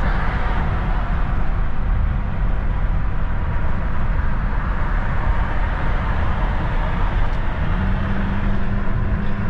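Steady low rumble of road and engine noise from a car driving, heard inside the cabin. A faint steady hum joins near the end.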